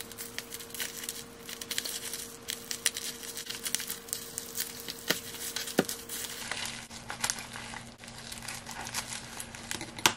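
Plastic packing wrap crinkling and crackling in irregular bursts as it is cut with scissors and pulled off a wrapped item.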